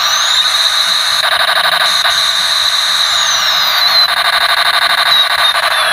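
Loud electronic siren-like sound effects over a steady hiss: a whistling tone sliding down in pitch, with bursts of rapid pulsing about a second in and again near the end.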